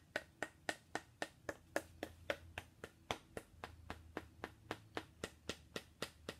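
A thin rod tapping on a hand-held bone in a quick, even rhythm, about four sharp clicks a second.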